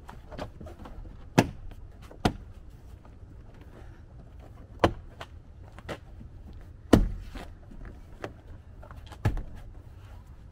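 Plastic door trim panel of a Toyota Tacoma being pressed home, its retaining clips snapping into the door: sharp separate snaps and knocks, about five loud ones a second or two apart, with smaller clicks between.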